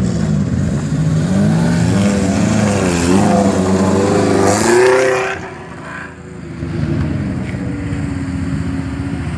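Off-road 4x4 jeep engine revving hard as it drives close past, its pitch climbing and wavering, then easing off suddenly about five seconds in; an engine then runs at a steadier, lower pitch.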